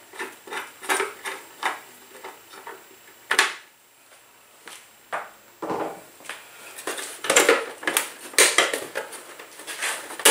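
Hand screwdriver backing a screw out of a scooter's plastic front panel: irregular small clicks and scrapes. In the last few seconds the plastic panel is handled, with louder clicks and knocks.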